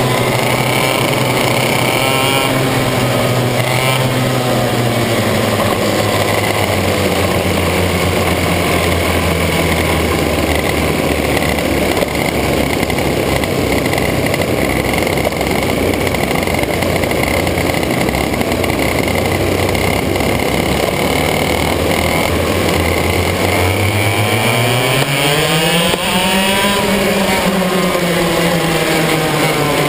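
Racing kart's two-stroke TaG engine running under the driver, among other karts: the revs drop early on, hold low and steady for a long stretch, then climb sharply under acceleration about three-quarters of the way through and ease off slightly near the end.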